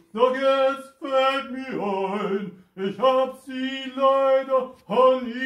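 A man singing unaccompanied, holding long steady notes in short phrases of about a second each with brief breaks between them.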